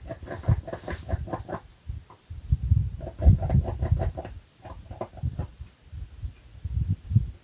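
An unseen animal making quick runs of short, squeaky calls in two or three bursts, over low thumps.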